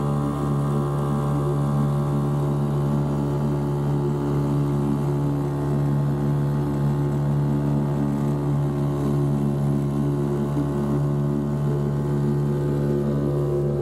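Boat outboard motor running at a steady speed, a constant engine hum.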